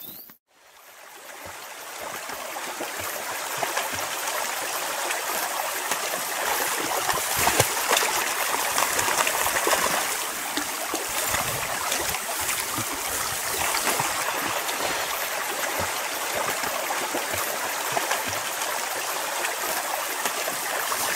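Small creek running: a steady rush of flowing water that fades in during the first few seconds after a brief silence.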